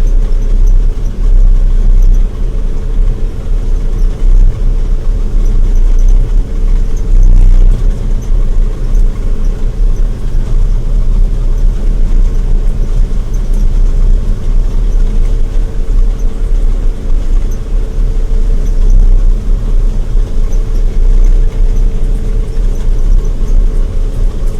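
Combine harvester running while cutting soybeans, heard from inside the cab: a loud, steady low engine drone with a constant hum above it.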